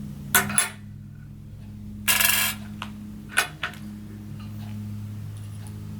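Small clicks and taps of an iPhone 6s Plus and its parts being handled during reassembly: two quick clicks near the start, a brief scraping rustle about two seconds in, and another click later. A steady low hum runs underneath.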